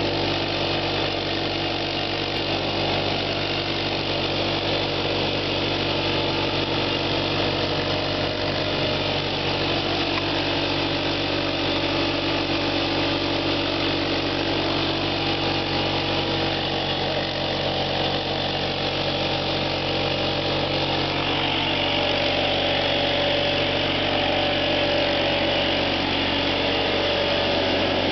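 ATV engine running hard and steady while its rear wheels spin in place in a burnout, a little louder toward the end.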